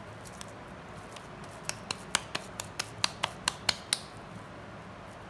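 Oiled hands patting a moist minced-beef shami kabab patty between the palms: a quick run of about a dozen sharp pats, some five a second, starting about two seconds in, over a faint steady low hum.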